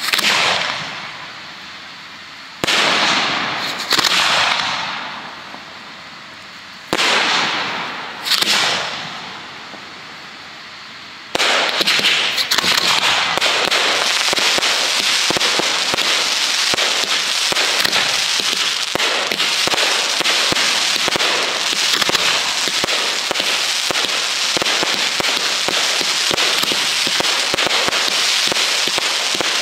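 Display fireworks going off: five sudden bursts in the first ten seconds, each fading away over a second or two, then about eleven seconds in a dense, continuous crackling of many small pops sets in and keeps going.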